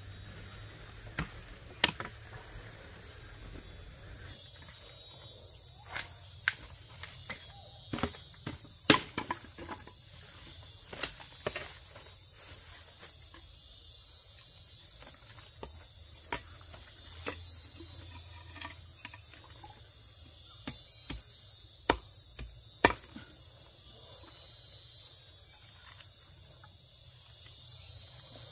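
Steady high chirring of insects, with scattered sharp snaps and clicks every second or so.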